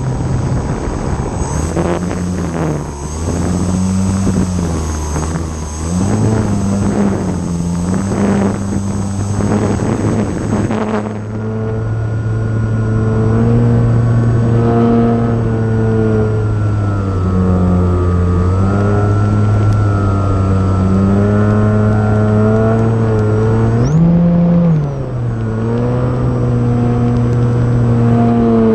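E-flite Timber RC plane's electric motor and propeller running, heard from a camera on the plane, the drone's pitch rising and falling with the throttle. Gusty wind rush on the microphone in the first part. Near the end the pitch drops quickly as the throttle is cut.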